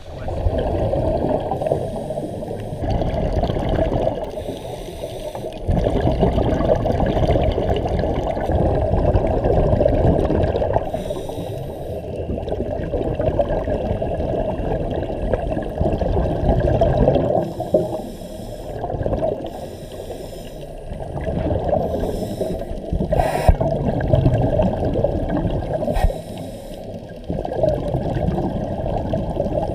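Muffled underwater sound heard through a camera's waterproof housing: scuba divers breathing through their regulators, with exhaled bubbles rushing past in swells every few seconds.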